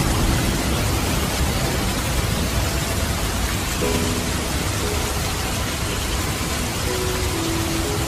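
Steady rain falling: a dense, even hiss that does not let up.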